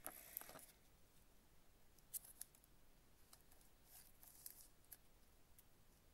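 Faint plastic sliding and scraping of a sleeved trading card being pushed into a rigid plastic top loader: a short swish at the start, then scattered light clicks and ticks as the card is worked in.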